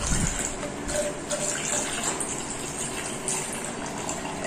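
Vinegar pouring from a small plastic scoop into a tall plastic cup, a continuous splashing trickle.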